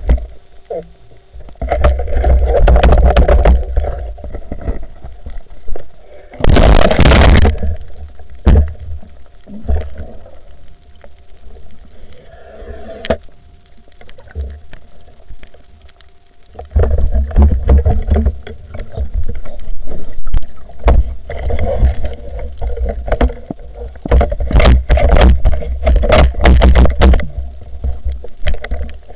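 Water rushing and churning over an underwater camera during a freediving spearfishing dive, in repeated heavy low rumbling surges with a louder splash about seven seconds in and a quieter spell about halfway through. A faint steady hum runs underneath.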